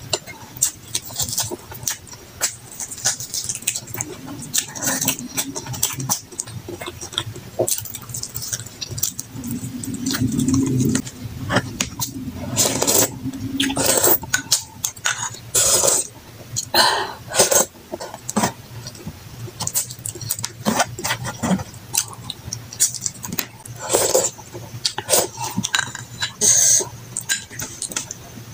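Close-miked mukbang eating: wet chewing and lip smacking on saucy meat, with quick clicky mouth sounds throughout, sips of broth from a spoon and a spoon clinking on the dishes.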